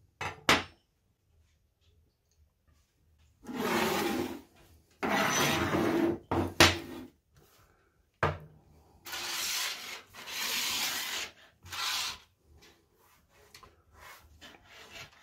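Hand tools and small metal pieces being slid and dragged across a tabletop, in four scraping bursts of one to two seconds each, with a few sharp knocks as things are picked up or set down.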